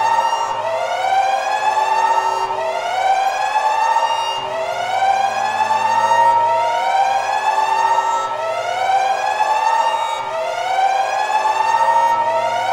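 Electronic siren-style warning alarm: a rising wail that repeats about every two seconds over a steady drone.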